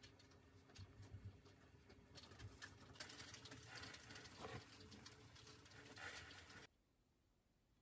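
Faint scratching and rustling of a pen, paper and a flannel sleeve against a notebook, with small scattered clicks over low room hiss. It cuts to silence near the end.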